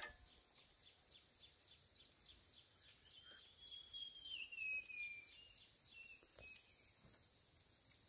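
Near silence with faint wild sounds: a steady high buzz under a regular run of short high chirps, about three a second, and a bird's whistle sliding down in pitch near the middle.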